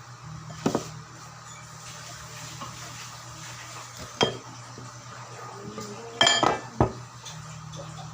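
Kitchen utensils and dishes clattering: a few sharp metal clinks, the loudest in a quick ringing cluster about six seconds in, over a steady low hum.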